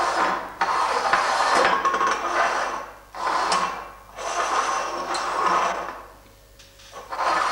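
Tin cans slid and shuffled across a tabletop: rasping scrapes in about five bursts of a second or two each, with short pauses between.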